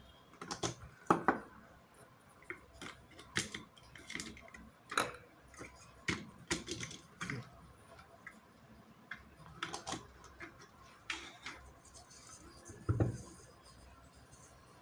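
Irregular light clicks and taps of a plastic LED bulb being handled, turned in and pulled out of its bayonet lamp holder on a hard table, with one louder knock about thirteen seconds in.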